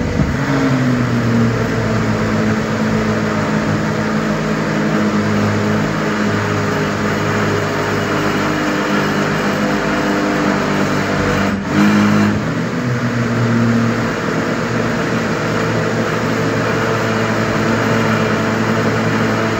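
Countertop blender motor running steadily, pureeing thick butternut squash soup in its jug. Its pitch settles slightly lower in the first second and dips and shifts briefly about twelve seconds in.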